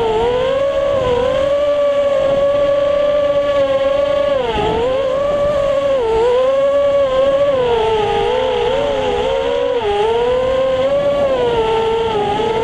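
FPV quadcopter's brushless motors and propellers whining as it flies, heard from its onboard camera. The pitch dips and climbs back many times as the throttle is cut and pushed through turns.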